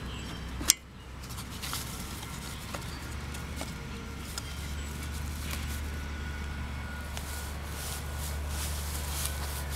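A steady low rumble of background noise, with a single sharp click about a second in.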